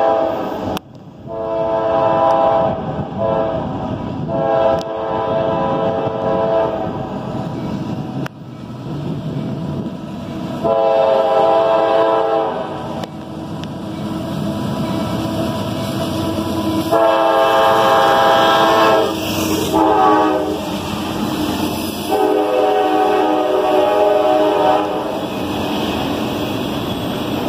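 Diesel freight locomotive's air horn blowing repeated blasts, most of them long and one or two short, as a CSX freight train approaches and passes beneath. Under the horn, the locomotive and the autorack cars rolling over the rails make a steady rumble.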